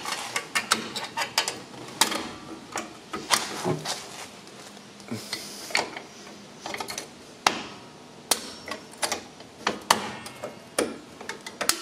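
Irregular sharp metallic clicks and clinks of a brake spring tool working a shoe return spring onto the anchor pin of a drum brake, steel tool against spring and brake hardware.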